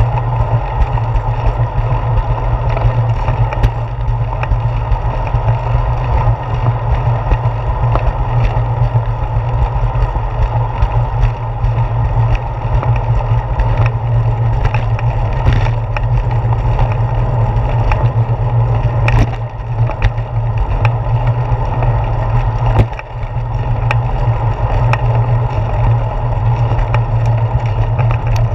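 Steady low rumble of wind and road vibration on a handlebar-mounted GoPro Hero 4 as a bicycle rolls along a concrete sidewalk, with scattered short clicks and knocks from the bike going over the pavement.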